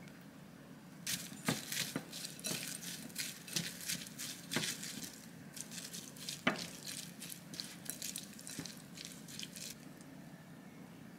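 Chopsticks mixing chopped raw beef with sauce in a glass bowl: wet squelching and stirring, with sharp clicks of the chopsticks against the glass. It starts about a second in and stops shortly before the end.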